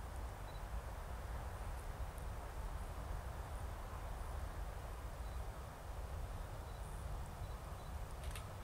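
Steady low wind rumble on the microphone in open countryside, with faint, scattered bird chirps. A brief sharp click near the end.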